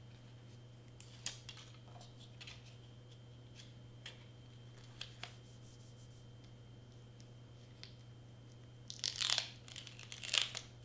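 Hands handling cardstock and double-sided mounting tape: light rustles and taps, then two louder peeling, tearing sounds near the end as tape is pulled and pressed down. A steady low hum runs underneath.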